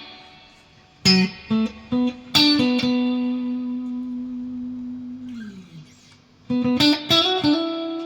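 Clean-toned electric guitar playing a short phrase. A few quickly picked notes lead into a long held note that slides down in pitch. After a brief pause, a quick run of notes ends on another sustained note.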